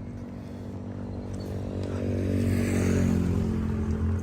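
An engine running steadily with a low, even drone, growing louder about two seconds in and easing off again near the end.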